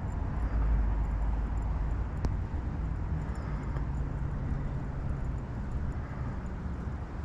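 Wind buffeting the microphone: an uneven low rumble, strongest in the first second or so, with a single sharp click about two seconds in.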